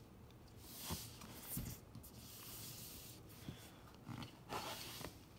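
Faint rubbing and scuffing of hands handling a sleeved cardboard board game box, with a few brief soft taps as it is moved and turned over.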